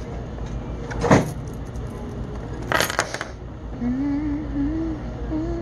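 Two short clatters of things being handled at a checkout counter over a steady low hum. About four seconds in, a simple wavering melody starts.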